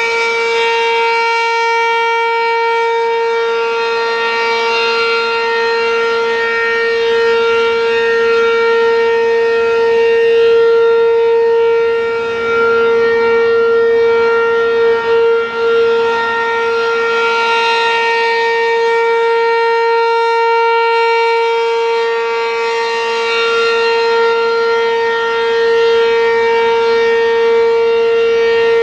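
ASC RM-127 Penetrator single-tone electronic civil defense siren sounding its steady alert signal, excruciatingly loud at one unchanging pitch. It swells and fades in loudness about every six seconds as the rotating horn sweeps past.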